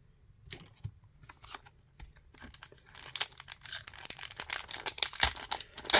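Trading card pack wrapper being handled and torn open: a few scattered crackles, thickening into dense crinkling and tearing about three seconds in.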